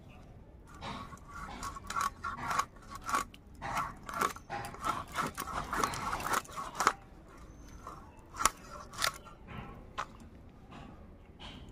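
Katla fish being cut on a boti's fixed upright blade: a busy run of scraping, crunching strokes as the blade goes through skin, scales and bone, then a few single sharp strokes near the end.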